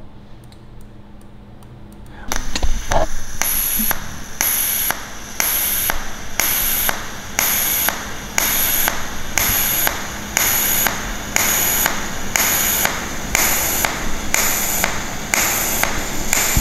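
Pulsed TIG welding arc: a hissing buzz that swells and drops back in an even rhythm, a little under twice a second, as the current steps between a high pulse of about 86 amps and a low background current of 10%. It starts about two seconds in.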